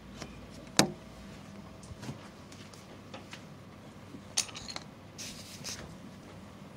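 Scattered clicks and knocks: one sharp click about a second in, then fainter clicks and two short rustling bursts near the end, over a low steady background hum.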